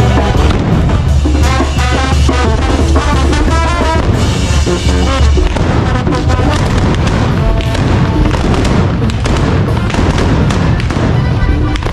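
Brass band music with a deep drum beat, the melody clearest in the first half, with many sharp bangs over it in the second half.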